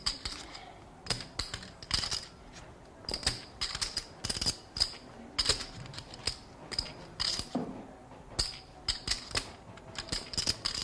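Poker chips clicking together in short, irregular clusters, about once a second, as a player shuffles chips in hand.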